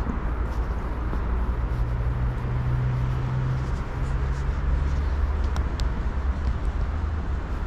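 Outdoor background noise: a deep, steady rumble with a low engine-like hum that holds for a few seconds and fades out about halfway through.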